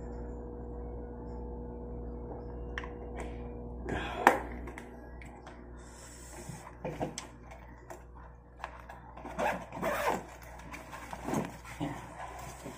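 Handling noises: scattered clicks, scrapes and knocks, the loudest a single knock about four seconds in, over a steady low hum that fades out about five seconds in.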